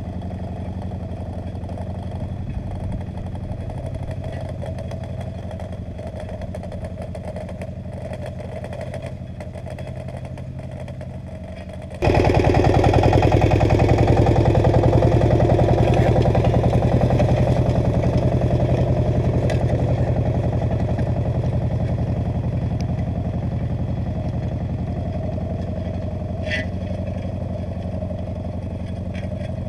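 Agria 8900 articulated tractor's Lombardini diesel engine running steadily under load while pulling a disc harrow. About twelve seconds in it turns abruptly louder, then slowly fades again.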